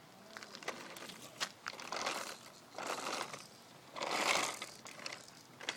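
Plastic wheels of a baby walker rolling over rough asphalt: a gritty rattle that swells and fades several times as the walker is pushed along, with a few sharp clicks.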